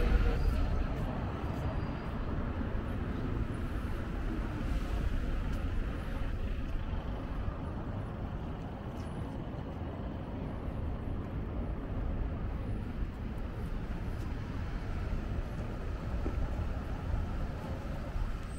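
City street traffic: cars passing on the road, a steady low rumble of engines and tyres.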